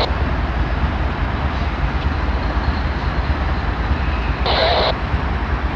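GE U-boat diesel locomotive engine running with a steady deep rumble. A brief burst of hissy noise comes about four and a half seconds in.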